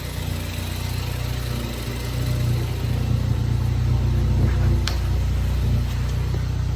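Car engine idling steadily with a low, even hum. There is one short click about five seconds in.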